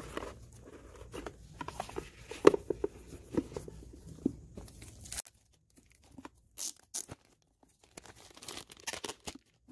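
Hands handling cardboard DVD and Blu-ray box sets and their plastic shrink wrap: scattered rustling, crinkling and tearing sounds with short taps and clicks.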